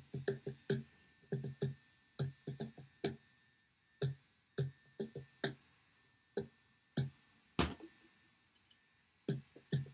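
Sparse, unevenly spaced percussive notes, each short and dying away quickly, with one louder, sharper strike about three quarters of the way through.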